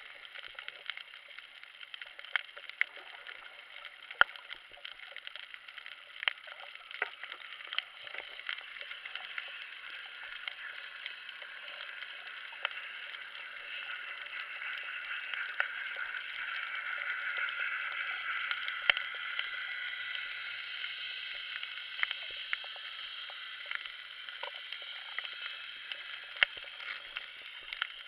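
Underwater ambience heard through an action camera's waterproof housing: a steady muffled hiss dotted with scattered sharp clicks and crackles, growing louder around the middle.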